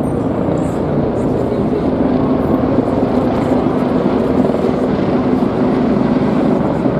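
Military helicopter flying past, a loud, steady rotor and turbine noise.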